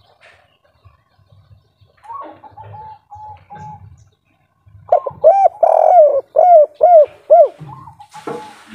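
Spotted dove of the 'kuk 3' song type cooing: a soft run of coos about two seconds in, then a loud series of about seven rounded coo notes from about five seconds in. A brief noisy burst comes near the end.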